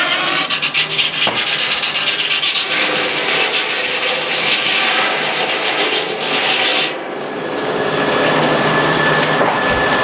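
Sawmill blade cutting through a log with a steady rasping noise that stops suddenly about seven seconds in, leaving the mill's engine and blade running.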